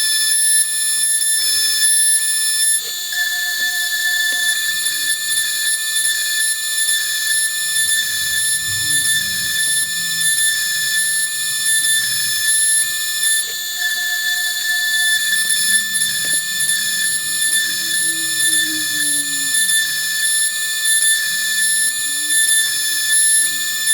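Fox Alien CNC router milling an aluminium plate: the spindle's steady high-pitched whine, with lower motor tones that rise and fall as the machine moves through the cut.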